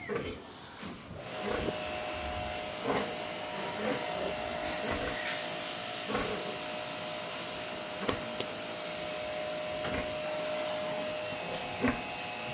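A machine running with a steady hiss and a faint steady hum, starting about a second in, with a few light knocks over it.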